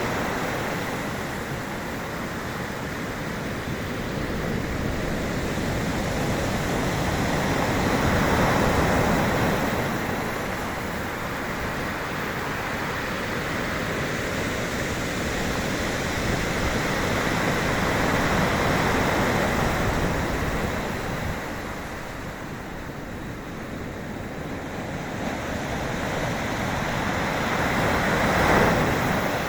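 Sea waves breaking and washing on a shore, the surf swelling and easing in slow surges several seconds apart, the loudest near the end.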